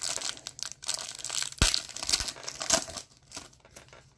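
Foil trading-card pack wrapper crinkling and tearing as it is opened by hand, with a sharp snap about a second and a half in.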